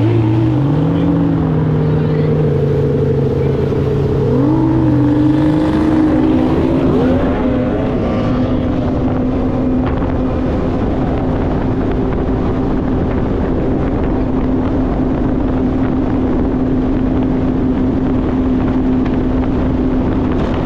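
Tunnel-hull race boat's outboard engine running hard at speed. Its pitch climbs in two steps early on, then holds a steady high note.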